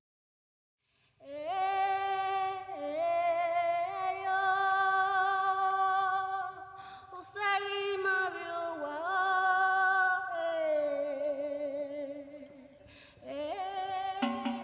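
Wordless female vocal singing long held notes that glide from one pitch to the next, over a faint low drone. It starts about a second in, breaks off briefly near the end, then comes back.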